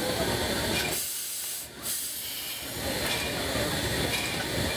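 Steady hiss of steam escaping from Flagg Coal Company No. 75, a small tank steam locomotive, steam venting near its cylinders; the low background thins for a moment about a second in while the hiss continues.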